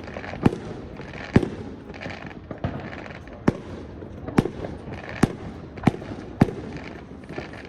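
Fireworks exploding: eight sharp bangs at uneven spacing, roughly one a second, the loudest near the start, over a steady background of noise.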